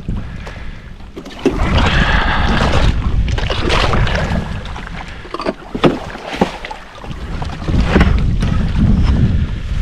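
Wind rumbling on the microphone with water sloshing, and several sharp knocks of dock parts being handled, the loudest a little past the middle.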